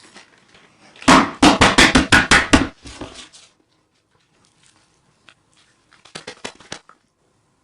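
Kitchen food-preparation noises: a quick run of about eight sharp, crunchy knocks, then a few fainter clicks near the end.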